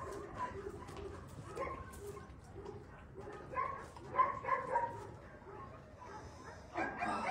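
Young puppies whimpering and yipping, many short high-pitched calls coming one after another.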